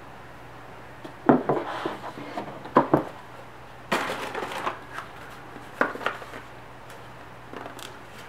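A glass perfume bottle and its cardboard box handled on a desk: a series of sharp taps and knocks, with a short scraping rustle about four seconds in.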